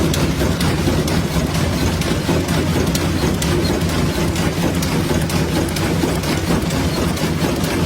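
Match-making factory machinery running steadily: a constant low hum under a dense, rapid clatter.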